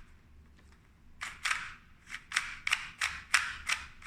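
Plastic Qiyi speedcube being turned quickly by hand: a rapid run of about ten sharp clicks as its layers snap round. The clicks start about a second in.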